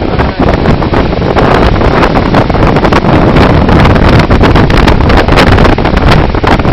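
Loud, steady rushing of a flash-flood torrent, with wind buffeting and crackling on the microphone.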